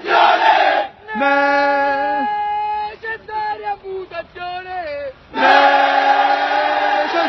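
A group of soldiers singing a military chant together: long held sung notes, shorter sung phrases, then a louder held group shout about five seconds in.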